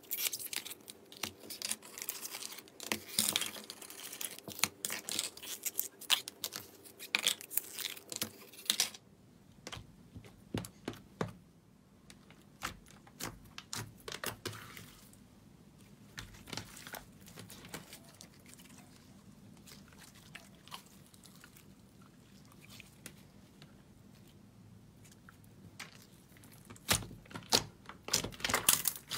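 Glossy slime being squeezed out of plastic cups and pressed and folded by hand, a crackle of small sticky pops and clicks. Busy for the first nine seconds, sparse and soft in the middle, and busy again near the end.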